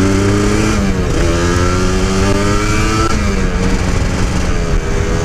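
Kawasaki Ninja 150 SE two-stroke engine accelerating on the move, its pitch climbing and then dropping at two upshifts, about a second in and about three seconds in, before holding fairly steady.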